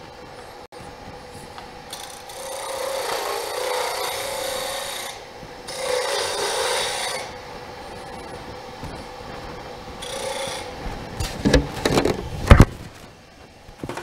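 A hardwood duck call blank spinning on a wood lathe is hand-sanded, in two long passes and a short one, over the lathe's steady hum. A few sharp knocks come near the end and are the loudest sounds.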